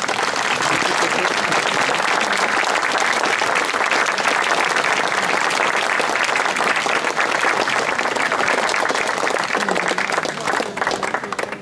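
A crowd of people clapping their hands in a steady round of applause that dies away near the end.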